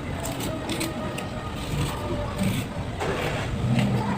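Vegetable preparation in a kitchen: a knife working on a cutting board, with scattered short clicks and scrapes.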